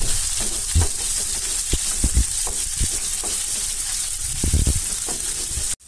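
Chopped onions sizzling in hot mustard oil in a kadai, being lightly fried. A steady hiss runs under irregular knocks and scrapes of a wooden spatula stirring against the pan. The sound cuts out for an instant near the end.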